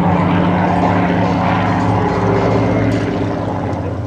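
Supermarine Spitfire Mk XIX in a display pass overhead, its Rolls-Royce Griffon V12 engine and propeller giving a loud, steady, deep engine note that fades a little near the end.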